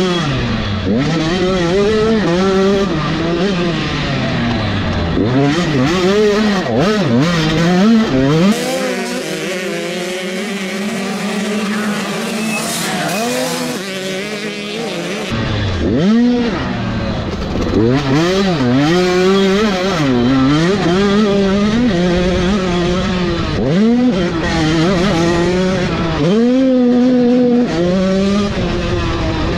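85cc two-stroke motocross bike engine revving hard, its pitch climbing and dropping over and over with throttle and gear changes.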